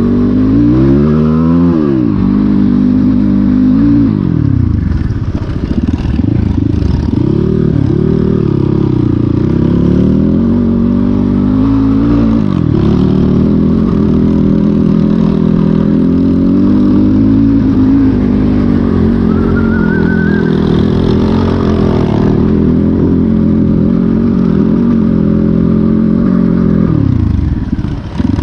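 Off-road motorcycle engine under changing throttle, its pitch rising and falling again and again. Near the end it drops low and then picks up again.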